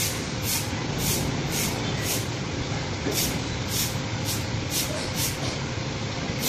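A broom swishing over a paved patio in short strokes about twice a second, pausing briefly midway, over a steady outdoor background rumble.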